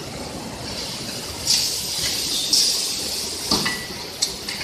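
Battery-case heat-sealing press working: two short bursts of hissing about a second apart, then two sharp metallic clanks near the end, over steady factory machinery noise.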